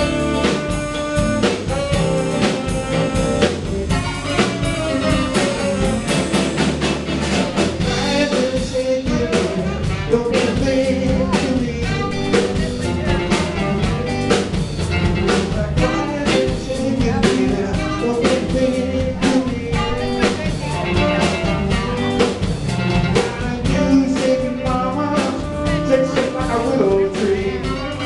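Live band playing in a bar: electric guitars over a drum kit keeping a steady beat.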